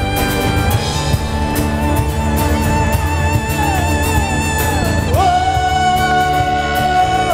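A band playing an instrumental passage over drums and bass. The lead melody slides down several times, then rises about five seconds in to a long held note.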